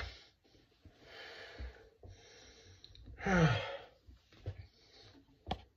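A man breathing heavily in several breathy puffs, with one louder sigh falling in pitch about three seconds in, and a sharp click near the end.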